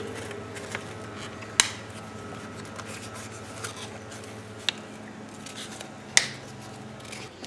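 Three sharp plastic clicks, spread over several seconds, as pieces are popped out of a 1987 Camaro's stock instrument cluster, over a faint steady hum.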